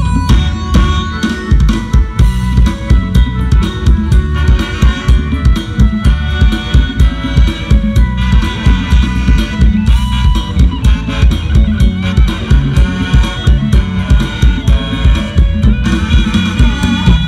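Live band music over a loud concert sound system, an instrumental stretch of an Isan luk thung / mor lam song: a drum kit keeps a steady driving beat of about two heavy kick-drum hits a second, with melodic instrument lines above.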